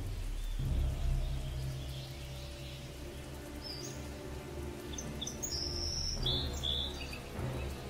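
Soundtrack of a low, steady music drone with high, bird-like chirps and calls, mostly in the second half.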